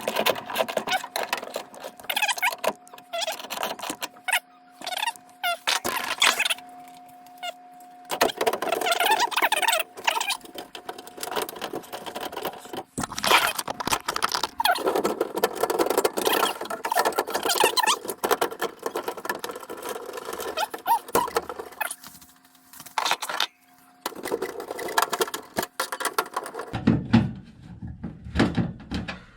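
Tools and metal furnace parts clattering, clicking and scraping as they are handled, in irregular bursts, with a faint steady hum underneath for the first several seconds and again near the end.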